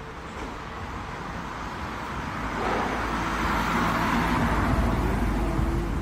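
Road vehicle passing: a rumbling noise that swells to a peak about four seconds in, then eases off.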